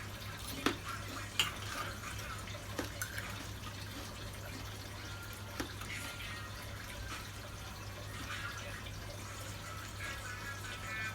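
A few scattered light clicks and knocks from handling food and utensils, over a steady low electrical hum.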